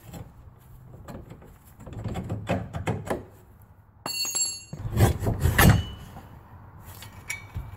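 Steel pins and a square steel tube being pulled off a hitch drop mount: metal scraping and clanking, with a ringing clink about four seconds in and the loudest scrapes and knocks just after, as the tube slides up off the mount.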